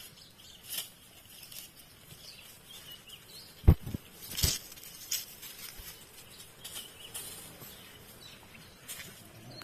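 Rustling and snapping in dry leaves and twigs as hunting dogs and a man move about in brush, with two sharp knocks about halfway through. Faint bird chirps come and go.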